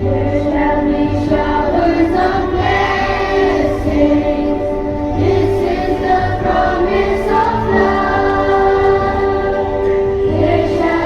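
School choir singing a prayer song in long, held notes.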